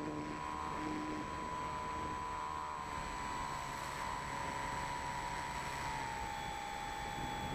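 Electric motor and propeller of an E-flite Apprentice RC trainer plane, heard from on board: a steady whine over a rush of air, stepping slightly lower in pitch twice.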